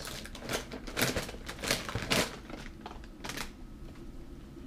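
Plastic snack wrappers and packages crinkling and rustling as they are rummaged through in a cardboard box, in quick irregular clicks and crackles that are busiest in the first couple of seconds and sparser after.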